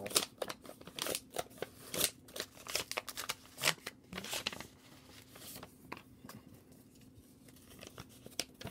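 A paper envelope being opened by hand: quick crackles and rustles of paper, busy for the first several seconds, then sparser.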